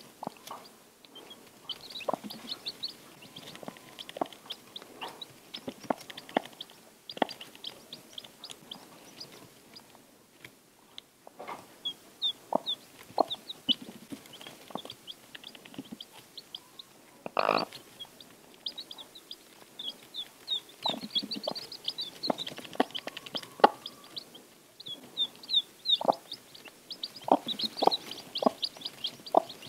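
Newly hatched Icelandic chicks peeping in runs of short, high chirps, with the broody hen's low clucks scattered among them. One louder, longer sound comes about halfway through.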